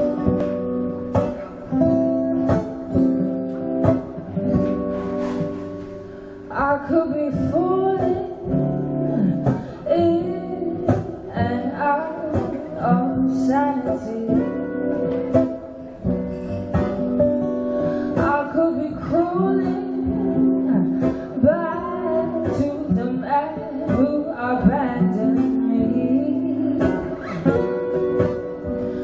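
Two acoustic guitars playing together, joined about six seconds in by a woman singing over them.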